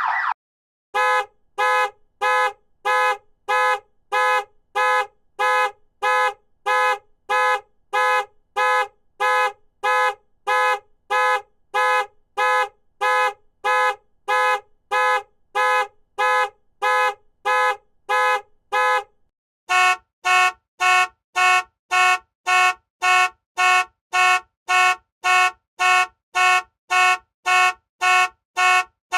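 Car alarms honking in short, evenly spaced horn beeps, about one and a half a second at first. Near two-thirds of the way through, a louder, higher-pitched horn takes over, beeping faster, about two a second. At the very start, a continuous alarm tone cuts off.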